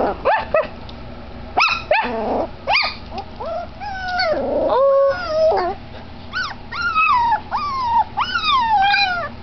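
Puppy yelping: a few short, sharp yips in the first three seconds, then a string of drawn-out whimpers that each slide down in pitch, about one a second.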